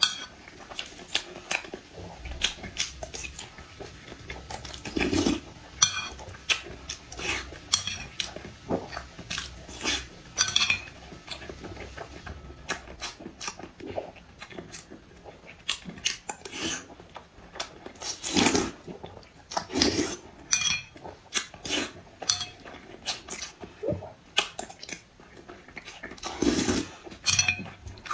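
Close-miked eating: a metal spoon clinking and scraping against the bowl and plates at irregular intervals, mixed with chewing and slurping as whole boiled eggs and noodle soup are eaten.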